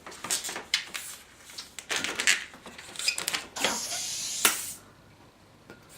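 Hand pump inflating a twisting balloon: a run of short rushes of air, then a longer hiss about four seconds in.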